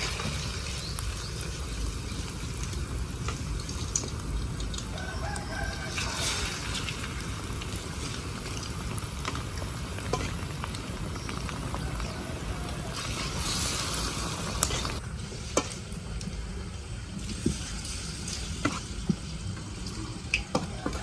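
Whole batter-coated frogs deep-frying in a wok of hot oil: a steady sizzle. A rooster crows in the background about four seconds in, and in the last few seconds a spoon clicks against a metal bowl while stirring the batter.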